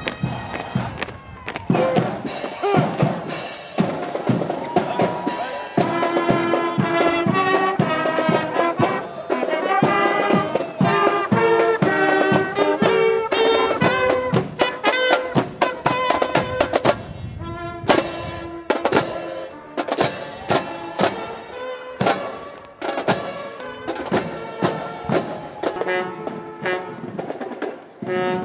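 Marching band playing a brass melody, trumpets and trombones over a steady bass and snare drumbeat.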